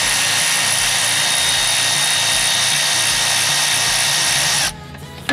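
Cordless power ratchet running on a bolt, a steady whirring whine that stops near the end, followed by a brief second burst.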